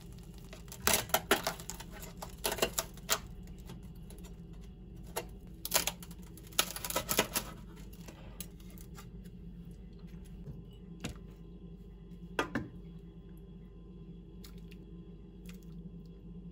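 Light clicking and clattering in short clusters, about a second in, around two and a half seconds, and from about five to seven and a half seconds, then a few single clicks later, over a steady low hum.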